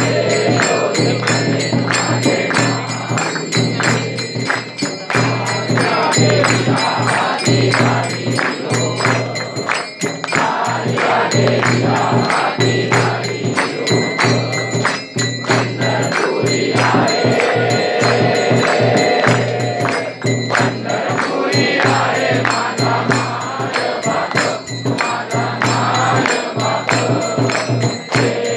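A crowd of devotees sings a devotional aarti together over a steady beat of hand claps and jingling percussion.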